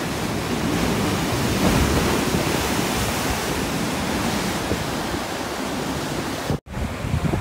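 Rough sea surf breaking and washing over rocks, a steady rushing roar. The sound cuts out for an instant near the end.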